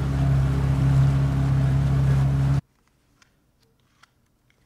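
A small boat's motor humming steadily with a hiss over it. It cuts off abruptly about two and a half seconds in, leaving near silence with a few faint clicks.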